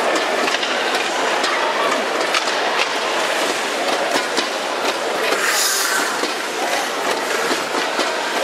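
Ice-arena din: a steady mass of crowd and rink noise, with frequent sharp clicks and clatter of hockey sticks and skates on the ice. A brief hiss rises over it about five and a half seconds in.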